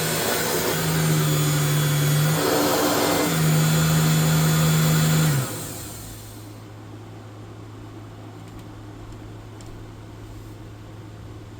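Dirt Devil Broom Vac model 712 stick vacuum running with a steady motor hum, its sound turning rougher for about a second near three seconds in. It is switched off about five and a half seconds in and winds down quickly, leaving a faint steady low hum.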